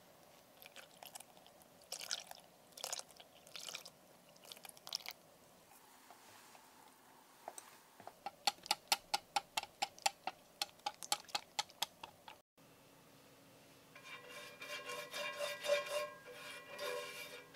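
Wire whisk beating crepe batter in a glass bowl, its wires clicking against the glass about four times a second. Then a pastry brush spreads oil over a cast-iron pan with a squeaky rubbing sound.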